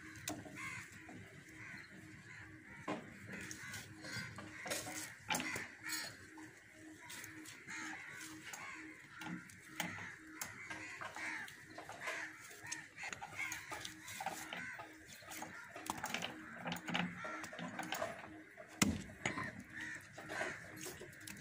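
Knife cutting goat meat on a wooden chopping stump, with scattered sharp knocks of the blade against the wood, while birds call continually in the background.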